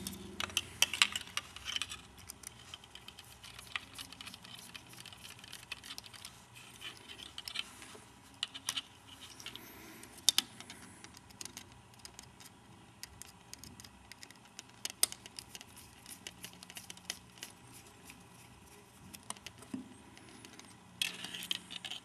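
Small plastic parts of a Syma S107 mini RC helicopter clicking, tapping and scratching as the rear tail stabilizer bars are worked off by hand, in irregular short clicks.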